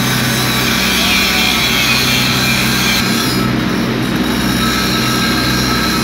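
Angle grinder grinding on a steel pipe joint over a steady low machine hum. The grinding hiss stops about three seconds in, leaving the hum.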